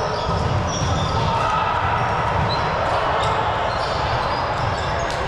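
Indoor ball game in a gymnasium: shoes squeak briefly and often on the court floor, and a ball thuds a couple of times, over the steady rumble of a large hall.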